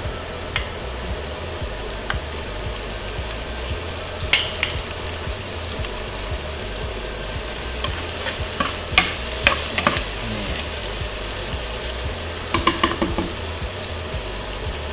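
Diced tomatoes frying in hot oil with onions and garlic in a pot, a steady sizzle. A utensil clicks and scrapes against the pot in short bursts, about four seconds in, around eight to ten seconds, and near thirteen seconds, as the pan is stirred. A steady low hum from the kitchen exhaust fan sits underneath.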